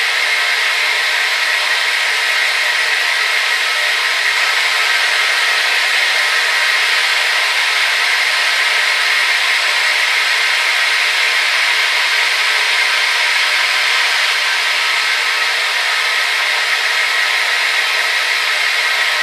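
Hair dryer running steadily: an even rushing of blown air with a faint motor whine, strongest in the upper-middle range and with no low rumble.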